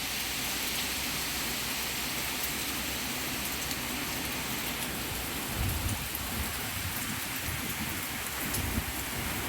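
Torrential rain pouring down in a steady, dense hiss. From about halfway through, short low rumbles come and go under the rain.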